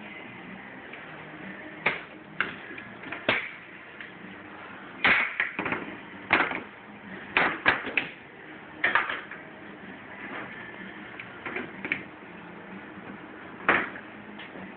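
Spring clamps being released and pulled off an aluminium screen-printing frame: a dozen or so irregular sharp clacks and knocks of the clamp jaws on the metal bars and bench.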